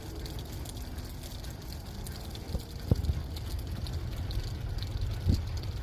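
Light rain pattering, with a steady low rumble of wind on the microphone and two soft thumps, about three and five seconds in.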